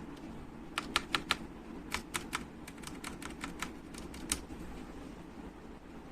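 Keys of a mechanical keyboard fitted with plate-mounted stabilizers being pressed: about fifteen sharp clacks in uneven clusters over three and a half seconds, starting just under a second in.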